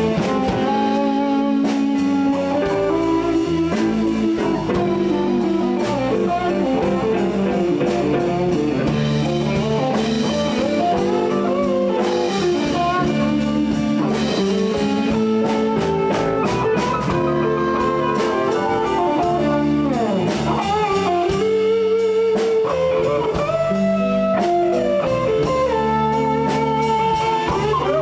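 Live blues band playing an instrumental break: electric guitars with bass and drums, the notes bending and sliding.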